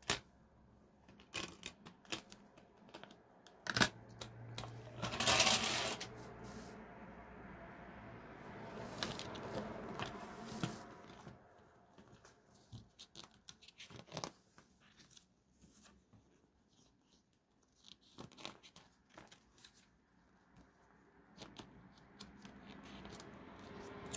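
Handling a CD jewel case and its paper booklet: scattered sharp plastic clicks and paper rustling and sliding as the booklet is taken out and its pages are opened, with a louder rustle about five seconds in.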